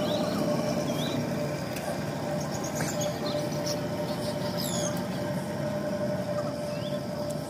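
Riverside dock ambience: a steady low drone with a constant hum, and small birds chirping now and then, with one high falling whistle a little past halfway.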